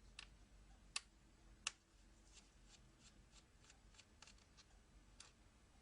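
Faint small clicks and ticks of a screwdriver taking out the screws that hold a laptop's hard-drive caddy bracket, with two sharper clicks about a second in and just under two seconds in.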